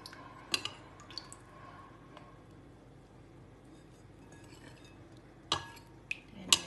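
Metal spoon clinking against a glass mixing bowl while soy sauce is spooned over boiled chicken pieces. A couple of sharp clinks with a short ring come near the start, then a lull, then a few more clinks near the end.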